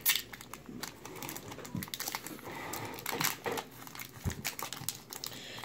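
Foil Pokémon booster-pack wrapper crinkling and crackling as hands work it open, a run of irregular crackles with one soft bump about four seconds in.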